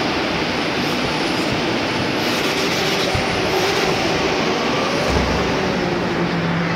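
Motorsport engines revving over a loud, continuous roar, their pitch rising and falling, most clearly near the end.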